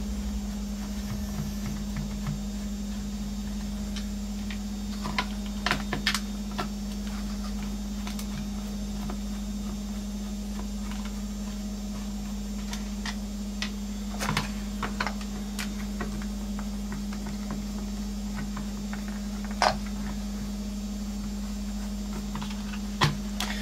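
A screwdriver taking screws out of a plastic speaker-dock casing: scattered small clicks and taps of the bit, the screws and the plastic, in a few short clusters. A steady low hum runs underneath.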